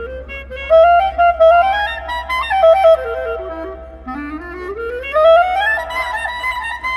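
A lone instrument plays a solo melody: a stepwise phrase, a short falling figure, then a smooth rising run that climbs to a held high note near the end.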